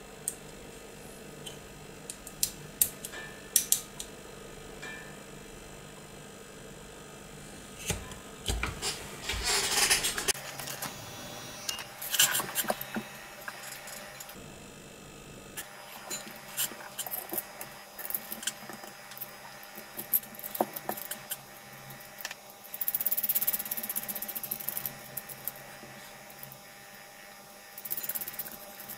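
Handling noise of a small circuit board and a plastic part being turned over and fitted together by hand: scattered light clicks and taps, with a stretch of rubbing and rustling about a third of the way in and short scraping hisses near the end.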